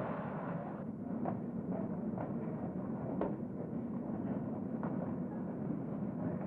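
Outdoor city street sound: a steady hum of traffic, with a few faint knocks.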